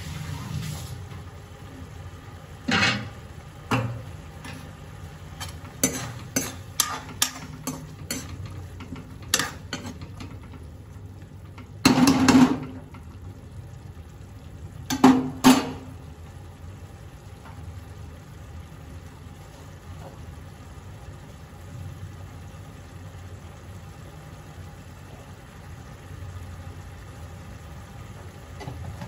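Steel ladle working a pea curry in an iron kadhai: a run of sharp taps and scrapes of metal on metal, then two louder clanks, about 12 and 15 seconds in. Under it, a low steady sound from the simmering pan.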